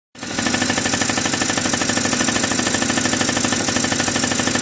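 Yamaha Champ 50cc scooter's two-stroke engine running steadily with a fast, even pulsing beat.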